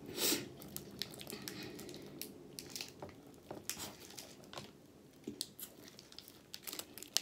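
Mouth sounds of biting into and chewing a chocolate-coated caramel bar, faint and clicky, with the foil wrapper crinkling in the hand.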